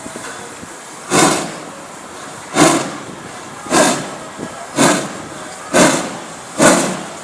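Hr1 class steam locomotive No. 1009 starting away, its exhaust chuffing six times with a steady hiss of steam between. The beats come closer together as the engine picks up speed, from about one every second and a half to nearly one a second.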